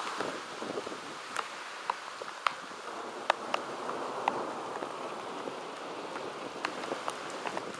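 Heavy thunderstorm rain pouring onto wet asphalt as a steady hiss, with scattered sharp ticks of single drops or stones striking close by.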